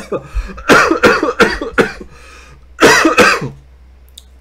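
Man coughing in a fit: a quick run of coughs, then a pause and one last cough about three seconds in.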